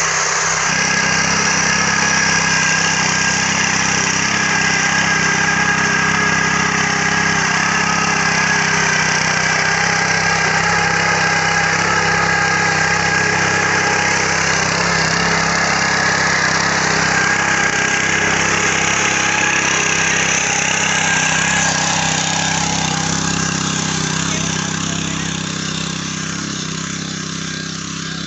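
Small engine of a walk-behind power tiller running steadily while its rotary tines churn the soil, fading gradually over the last few seconds.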